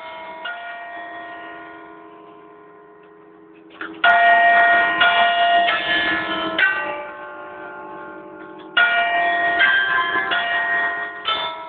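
A ring of six church bells struck in turn by the hammers of a historic pinned chime barrel, playing a tune. Earlier notes ring on and fade under each new strike. A loud run of strikes starts suddenly about four seconds in, and another about nine seconds in.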